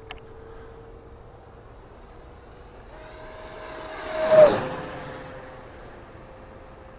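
E-flite Viper 70mm electric ducted-fan RC jet whining in flight; about three seconds in the pitch steps up as the throttle opens, and it makes a fast pass, loudest about four and a half seconds in, with the whine dropping in pitch as it goes by and fades.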